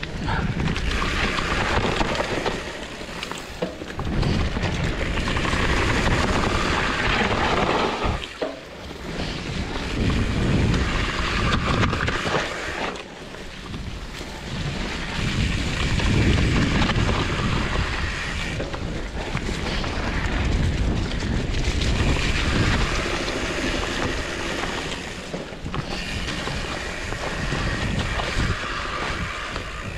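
Riding noise from a fat-tyre mountain bike on a wet trail: wind buffeting the microphone over the rumble of the tyres. It swells and eases every few seconds with no steady tone.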